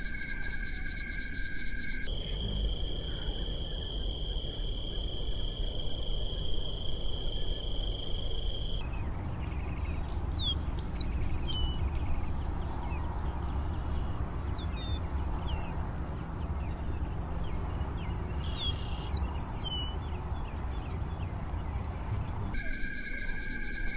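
Wetland ambience of insects trilling in steady high-pitched drones, the pitch jumping higher twice and dropping back near the end. Short bird chirps come and go in the middle, over a low rumble.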